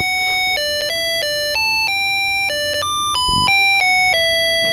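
Electronic playground kit's music chip playing a simple beeping tune through its small speaker, one plain electronic note after another, with a soft bump a little after three seconds.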